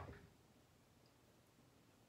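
A single short knock at the very start, fading quickly, then near silence: room tone.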